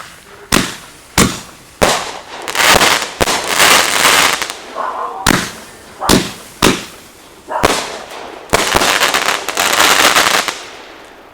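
Consumer fireworks going off: a string of sharp bangs with long stretches of dense crackling between them, the last crackle dying away near the end.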